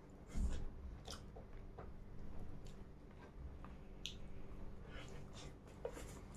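A person chewing and biting food close to the microphone: scattered wet smacks and small clicks of eating, with a louder bump about half a second in.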